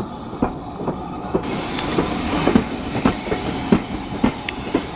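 Steam-hauled passenger train's carriages rolling past at close range, their wheels clicking over the rail joints in a run of sharp knocks about every half second over a steady rumble.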